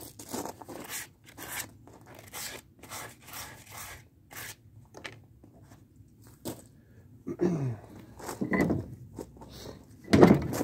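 Quick rubbing strokes of a paper towel wiping a rusty Reed bench vise. Then come a few loud creaking, scraping groans as the vise's screw handle is worked, the rusty lead screw being freed up with oil. The last groan is the loudest.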